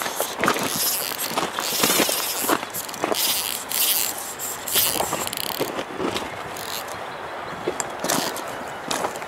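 An angler playing a freshly hooked trout on a fly rod: irregular scraping, clicking and splashing from the reel, line, water and wading, busiest in the first six seconds and calmer after.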